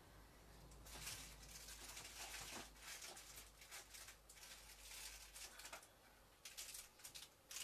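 Faint rustling and light clicks of hands rummaging through craft supplies to find a blending pen, in a rapid irregular patter that starts about a second in and thins out near the end.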